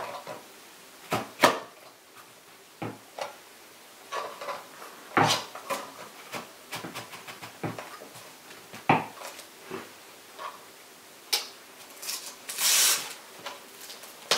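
Scattered knocks and clicks of hands handling an Explore Scientific AR102 refractor's tube and its mounting rings on a table, with a short burst of paper rustling near the end as the tube's paper lining starts to come off.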